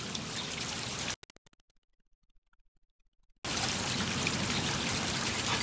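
Steady outdoor background hiss with no barking, cut about a second in by roughly two seconds of dead silence, as at an edit in the audio.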